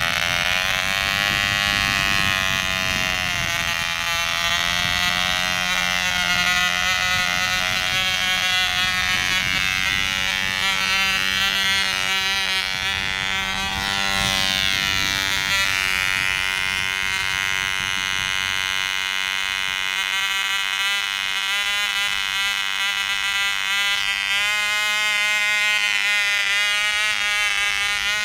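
Tiny 1/2A-size model airplane engine running flat out at a steady high-pitched buzz, its pitch shifting slightly now and then. Wind rumbles on the microphone under it for the first two-thirds.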